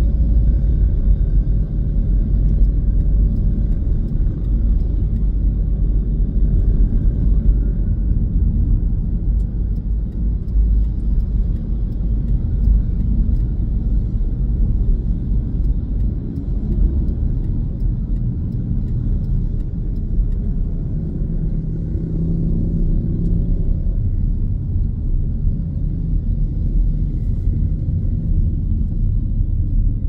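Cabin sound of a Mitsubishi Grandis GT on the move: a steady low rumble of engine and road noise. A humming note comes up for a couple of seconds about three-quarters of the way through.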